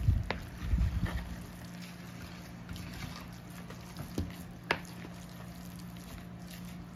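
Wooden spoon stirring a wet raw meatloaf mixture in a plastic bowl: soft squelching and scraping, busiest in the first second, with a few sharp taps of the spoon on the bowl.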